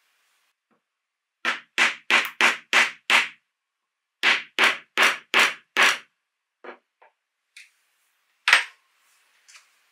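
Two runs of five hammer blows, about three a second, on a metal snap-setting punch, crimping a 14 mm metal snap button onto nylon webbing over a metal anvil. A few lighter clinks follow, with one sharper knock near the end.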